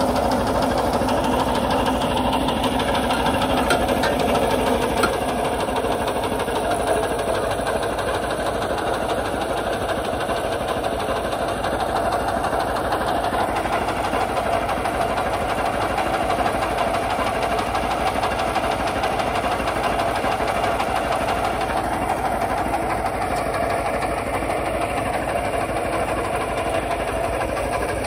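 Kubota RT140 walk-behind tractor's single-cylinder diesel engine running steadily.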